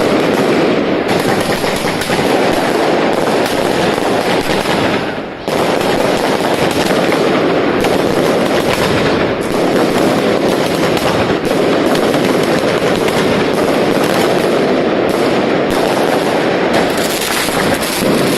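Consumer firework battery (cake) firing a dense, rapid stream of bangs that run together almost without gaps, with a short dip about five seconds in.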